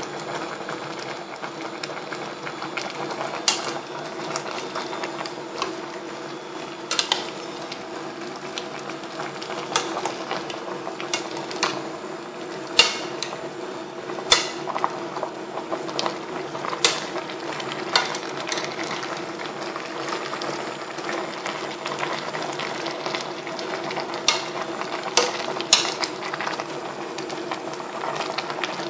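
Pot of pork simmering steadily, with scattered sharp clicks and knocks.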